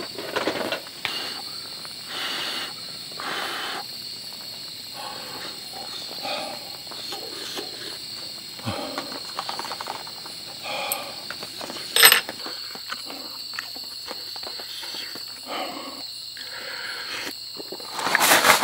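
Crickets chirring steadily under scattered close eating noises from a hot seafood stew eaten with chopsticks and a spoon, with one sharp click about twelve seconds in.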